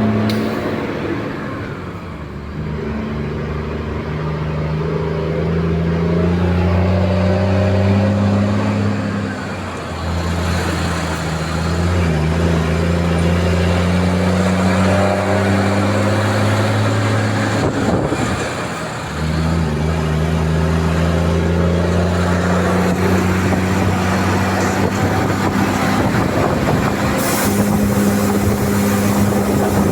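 Mercedes-Benz 1620 truck's OM 906 inline-six turbodiesel on a straight-pipe exhaust, accelerating fully loaded. The engine note climbs and drops sharply at gear changes about nine and a half and eighteen and a half seconds in, then climbs again and holds steady. There is a brief hiss near the end.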